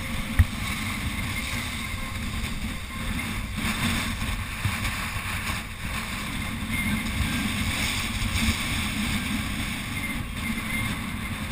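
Wind buffeting the microphone over waves washing and splashing against shoreline rocks, with a single short knock about half a second in.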